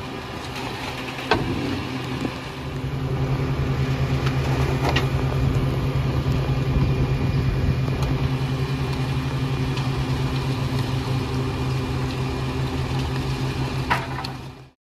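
Diesel engine of a Pak-Mor rear-loader garbage truck running steadily, stepping up louder about two seconds in and holding there, with a few sharp knocks. The sound cuts off abruptly near the end.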